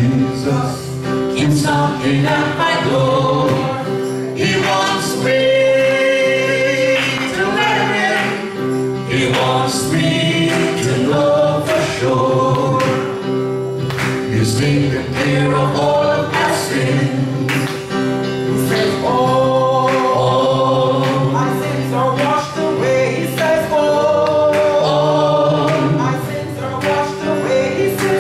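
Gospel song: several voices singing together over instrumental accompaniment with percussion.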